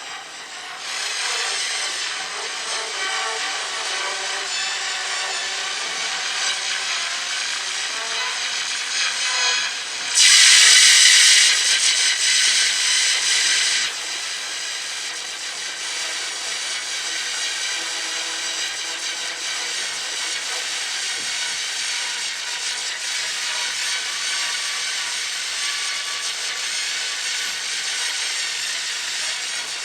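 Harsh, grating sound effects for a fictional monster or machine character. They run on with little change, and a much louder, brighter burst about ten seconds in lasts some four seconds.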